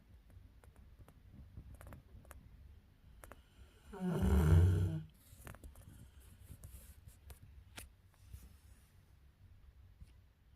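A sleeping dog snoring loudly: one long snore lasting about a second, about four seconds in.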